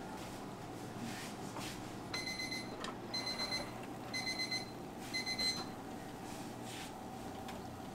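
Electronic kitchen alarm beeping: four bursts of quick high-pitched beeps, about a second apart, over a steady low hum.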